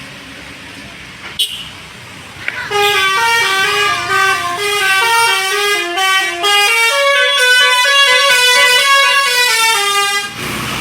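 Bus's basuri 'telolet' multi-tone horn playing a quick melody of stepped notes, starting about three seconds in and cutting off suddenly near the end.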